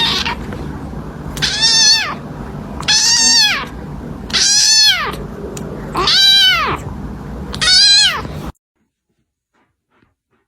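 A cat meowing loudly five times in a row, about one and a half seconds apart, each meow a long call that rises then falls in pitch, over a steady low background hum; everything cuts off suddenly near the end.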